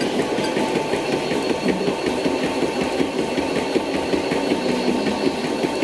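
Treadmill running under a jogger: a steady motor whine with her feet striking the moving belt in a quick, even rhythm.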